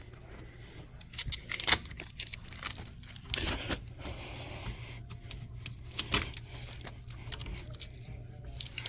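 Keys jangling and clicking amid irregular metallic clatter, with a brief rustle about three seconds in.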